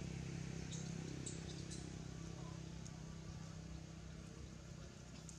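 A low, steady motor hum that slowly fades, with a few faint crackles of dry leaves about a second in.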